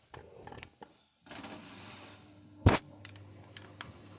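Candy washing machine drum turning slowly, creaking and knocking as it tumbles an unbalanced load that it cannot balance for its intermediate spin, over a low motor hum, with one loud thump about two and a half seconds in.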